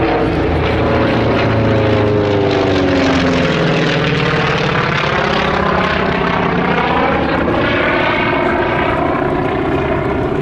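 Grumman FM-2 Wildcat's nine-cylinder Wright Cyclone radial engine and propeller, steadily loud as the fighter flies its display overhead, the engine note sliding down and then up again as it passes and turns.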